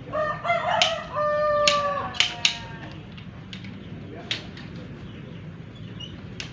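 A rooster crowing once, a single drawn-out call of about two seconds at the start, with a few sharp clicks or knocks during and after it.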